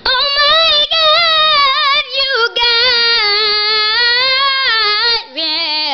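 A girl singing alone, drawing out high notes in ornamented runs with vibrato, dropping to a lower note near the end.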